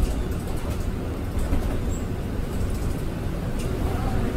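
Cabin noise of a city bus on the move: a steady low rumble of engine and road.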